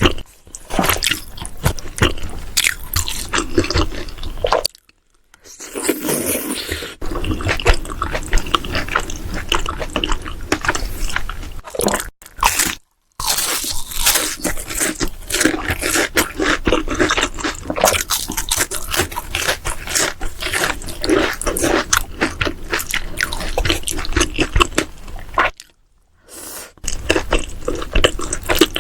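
Close-miked mukbang eating sounds: chewing and biting into saucy jjimdak (Korean braised chicken), with wet squishing and dense crackling clicks. The eating sounds drop out in three brief silences, about 5, 12 and 26 seconds in.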